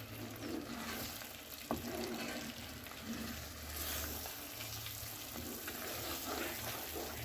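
Wooden spatula stirring thick, ghee-laden watermelon halwa in a nonstick pan, with a soft sizzle and the paste scraping and slapping against the pan, and one light knock of the spatula against the pan just under two seconds in. The halwa has thickened to the stage where it comes away from the sides of the pan.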